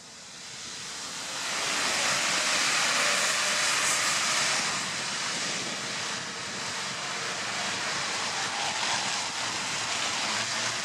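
Road traffic on a rain-soaked street: tyres hissing through surface water as a double-decker bus passes close by. The hiss swells over the first couple of seconds, is loudest for a few seconds, then settles into steady wet-road traffic noise.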